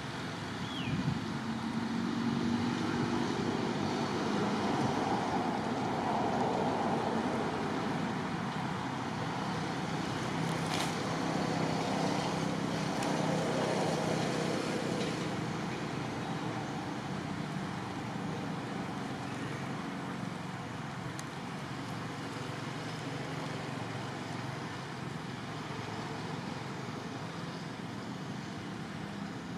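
Motor vehicle traffic noise: an engine hum that swells over the first half and then slowly fades, with one brief click about eleven seconds in.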